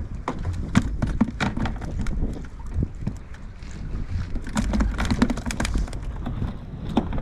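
Wind buffeting the microphone with a steady low rumble, along with a scattered series of sharp clicks and knocks, thickest about a second in and again past the middle.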